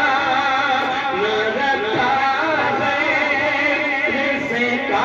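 A qari's solo voice chanting in a melodic Islamic recitation, drawn-out notes wavering and ornamented in pitch.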